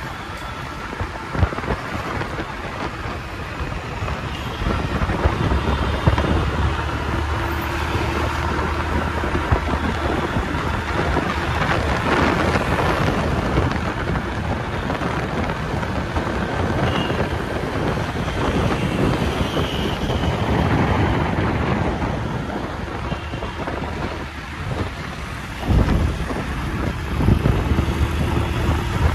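Wind buffeting the microphone on a moving scooter, over the scooter's engine and the rumble of surrounding city traffic; a few knocks and a louder gust near the end.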